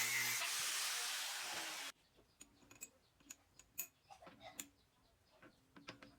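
A power tool runs loudly over a steady low hum. The hum drops out about half a second in, and the running noise cuts off abruptly near two seconds. It is followed by faint scattered clicks and light taps.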